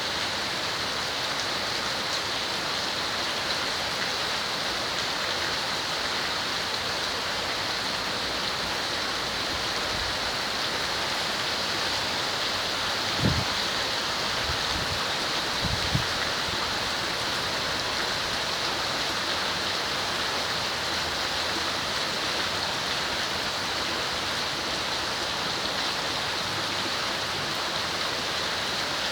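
Heavy tropical rain falling steadily as an even hiss. Twice, around the middle, there is a brief low thump.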